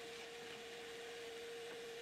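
Faint steady hum with a constant hiss: room tone. No drill or machine is heard running.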